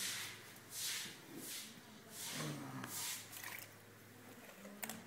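Hand scooping and scraping wet ground bhang (cannabis) paste in a stone mortar: about five soft wet scrapes in the first three and a half seconds, then quieter, with a sharp click near the end.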